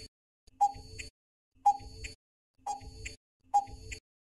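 Countdown timer sound effect: a short ticking beep repeating about once a second, counting down the time given to answer a quiz question.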